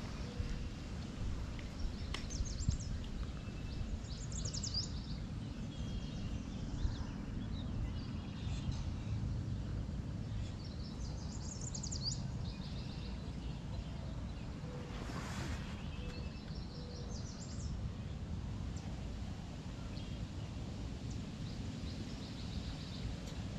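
Birds singing short high phrases four or five times over a steady low outdoor rumble.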